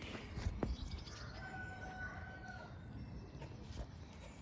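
A rooster crows once, one held call about a second and a half long, after a few dull thumps in the first second.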